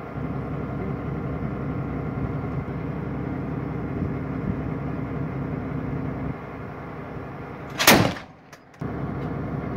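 Akıncı (ACV-15) armoured combat vehicle's engine idling steadily, then a single loud shot from its 25 mm turret cannon about eight seconds in.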